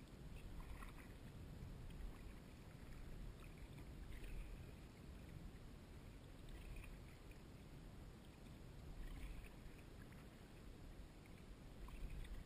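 Kayak paddle strokes: a faint splash of the blade dipping into calm water about every two seconds, over a low steady rumble.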